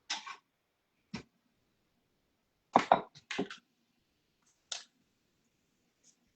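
Short clicks and knocks of kitchen things being handled and set down, separated by silence, with the loudest cluster of knocks about three seconds in.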